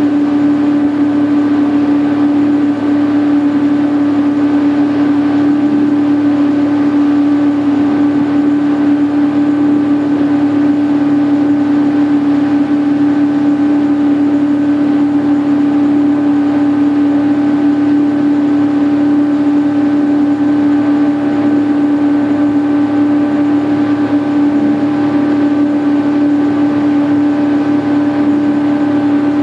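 Motorboat engine running at a steady cruising speed while towing an inner tube: an unbroken, even drone with a hiss of water and wind.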